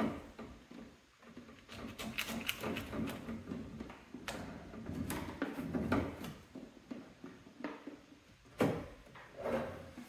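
Irregular clunks, clicks and rustling from parts and tools being handled and moved, with one sharper knock near the end.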